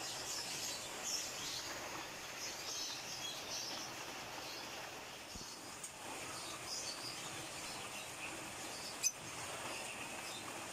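Small birds chirping in short, scattered calls over a steady background hiss, with one sharp click about nine seconds in.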